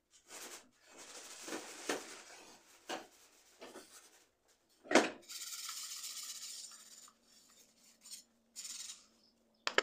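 Metal spiral scrubber scouring a soapy gas stove top and burner cap in rough, repeated scraping strokes. A sharp knock about five seconds in is the loudest sound.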